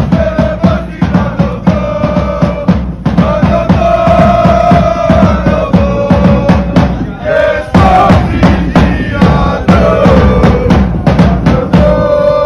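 Music with heavy drumming, steady beats on bass and snare drums, under a held melody line that shifts pitch every second or two.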